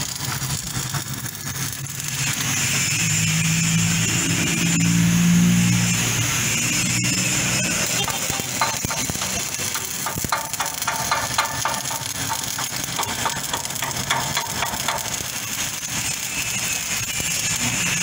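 Stick (arc) welding on a steel frame: a steady crackling hiss from the arc, with quick sputtering crackles through the middle stretch. A low hum sounds over the first few seconds.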